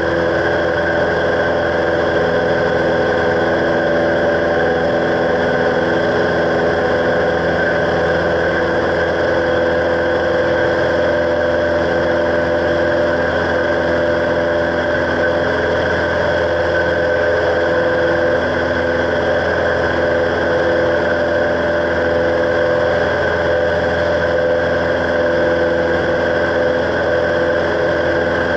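A Cessna 172's piston engine and propeller drone steadily inside the cockpit in flight, at a constant power setting.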